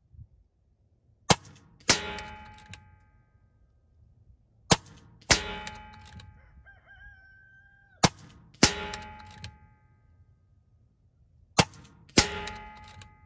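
Four shots from a .22 PCP air rifle (RTI Prophet), about three and a half seconds apart. Each sharp shot is followed about half a second later by a ringing metallic clang as the pellet strikes at the 100-yard target.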